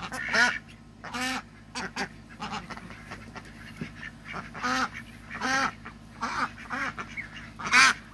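Domestic ducks quacking: about a dozen short quacks, each under a second apart, with the loudest one shortly before the end.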